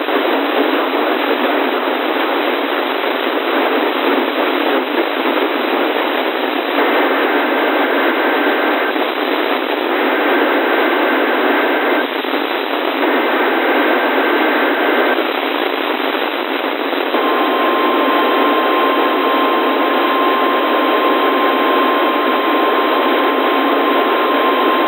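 NOAA Weather Radio weekly test heard through heavy receiver static. About seven seconds in come three SAME data bursts, digital header tones each about two seconds long with short gaps between them. About seventeen seconds in the steady single-pitch 1050-hertz warning alarm tone begins and holds.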